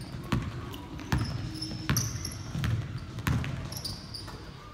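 Basketball dribbled on a hardwood gym floor: about five bounces a little under a second apart, with short high sneaker squeaks on the court in between.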